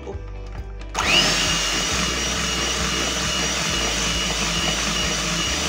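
Electric hand mixer switched on about a second in, its motor whine rising quickly to a steady pitch and running on as the wire beaters whip thick cake batter in a bowl.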